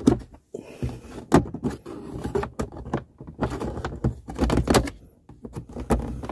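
A pry tool scraping and clicking along the edge of an Audi A6 C7's plastic center dash speaker grille as the grille is pried up out of the dashboard: irregular scrapes and sharp clicks with short pauses between.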